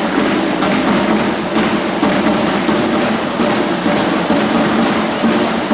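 Loud show music from the sound system over a dense, steady hiss like heavy rain.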